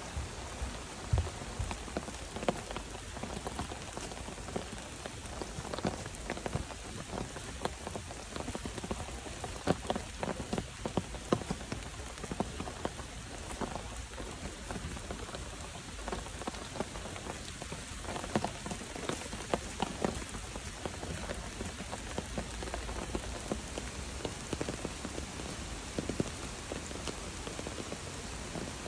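Steady rain falling, with frequent sharp taps of single drops close by.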